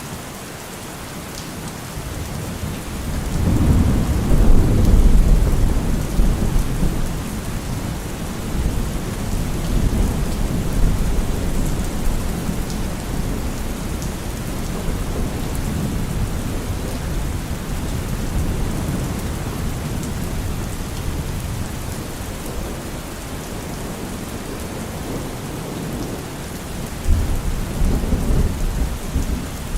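Steady rain with rolling thunder. A long low rumble swells about three to six seconds in, and another comes near the end.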